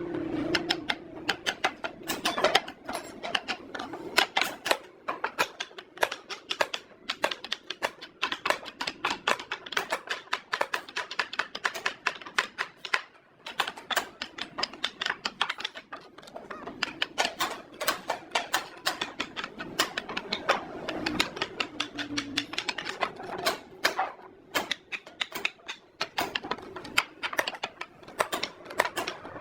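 Rapid, irregular sharp tapping and clicking of hand work on wood, several taps a second, with a couple of brief pauses.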